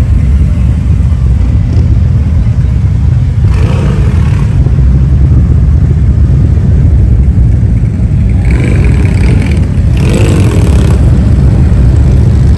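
Loud, steady low rumble of motorcycle engines, with louder swells about four seconds in and again from about eight and a half to eleven seconds as bikes rev or ride past.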